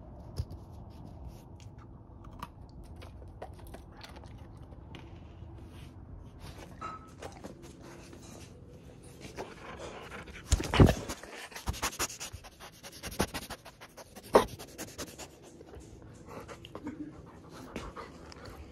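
A Barbet dog panting close by, with a few loud knocks about halfway through.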